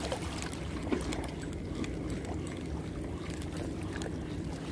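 Steady low outdoor background noise at a rocky shoreline, likely small waves on the rocks mixed with a distant hum, with faint scattered ticks.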